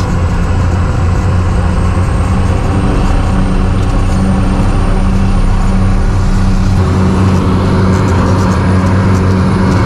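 Cessna Caravan floatplane's single turboprop engine and propeller at takeoff power, heard from inside the cockpit: a loud steady drone with a thin high whine slowly rising in pitch. The tone shifts about seven seconds in, as the plane comes off the water.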